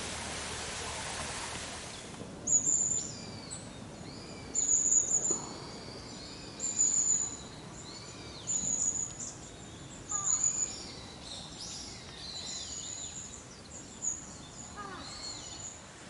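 A steady rushing noise stops about two seconds in. Then forest birds call: a short, high call repeated about every two seconds, with softer chirps and gliding notes between.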